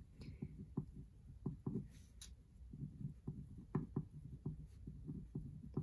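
Ballpoint pen writing on a paper worksheet: a quiet, irregular run of short scratches and taps as the pen strokes form a word.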